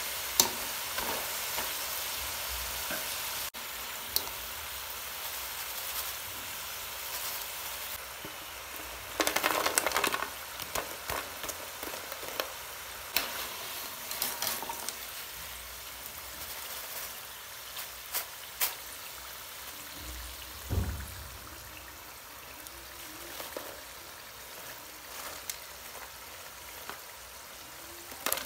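Potato fries deep-frying in hot oil in a metal wok, sizzling steadily, with clinks and scrapes of a wire mesh skimmer stirring and lifting them. There is a burst of clattering about a third of the way in, and the sizzle grows quieter toward the end.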